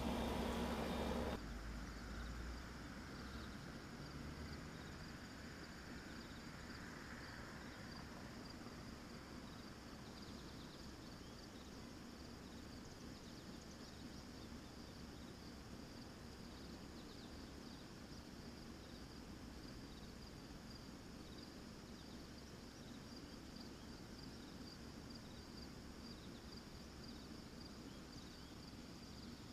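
Faint chorus of crickets and other insects, a steady stream of short high chirps over a low outdoor hum. It starts after a brief louder noise that cuts off about a second in.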